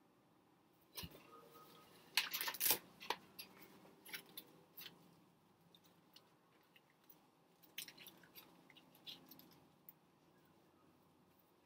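Cigarette pack being handled: short crackles and clicks of the pack, loudest in a quick cluster about two seconds in, with a soft knock just before and scattered light clicks after.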